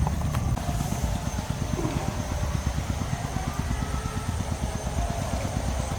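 Steady low rumble of a small engine running at an even speed.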